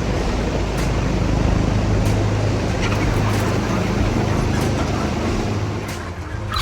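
A steady motor drone with a low hum under a noisy rush, easing off in the last second.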